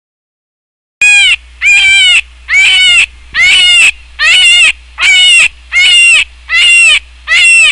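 A farm animal calling: nine short, loud, high-pitched calls in an even series, about one every 0.8 s, starting about a second in.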